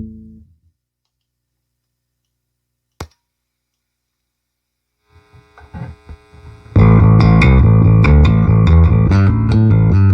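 Electric bass played through a Peavey VB-2 all-tube bass amplifier: a held note dies away, followed by a single sharp click about three seconds in. A few quiet notes come next, then about seven seconds in a loud riff of quick, separate notes with a growling tube tone.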